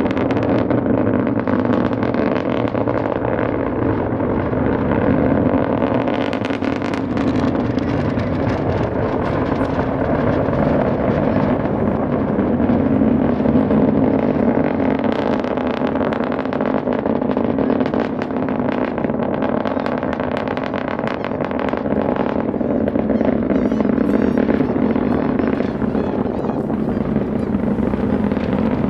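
Starship SN11's three Raptor rocket engines heard from miles away during ascent: a steady, unbroken rumble with crackle. It is captured on an unshielded internal microphone.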